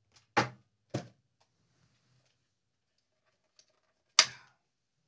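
Desk-top handling noise while a small router is fetched: a sharp knock about half a second in, another about a second in, and a louder clatter just after four seconds, with faint ticks between.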